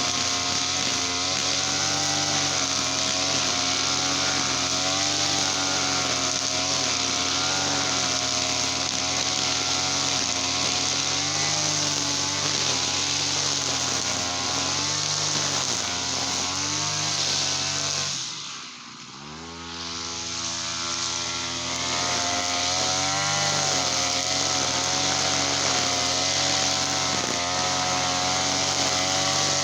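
Small petrol engine, as on a brush cutter, running fast and steadily with its pitch wavering slightly. About two-thirds of the way through it drops sharply in speed and loudness for a moment, then revs back up to full speed.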